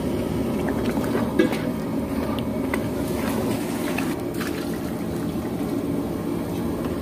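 A large pot of curry being cooked and stirred: a steady low rumble with liquid sloshing and a few light clinks.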